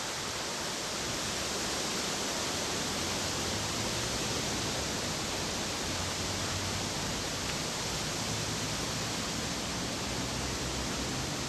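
Steady, even hiss with no distinct sounds in it, such as recording noise or a constant outdoor wash, with a faint low hum underneath.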